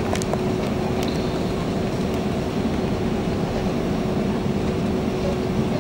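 Steady cabin noise of an Airbus A330-200 on its landing approach, heard from a passenger seat: the rumble of the Rolls-Royce Trent 700 engines and airflow, with one steady droning tone running through it.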